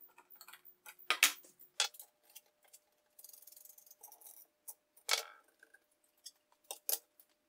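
Sharp clicks and taps of hand tools on a 3D-printed plastic dust boot: a screwdriver turning screws into the plastic, then a ratchet wrench clicking as the boot is bolted on, with a short run of fast ticking a little after three seconds.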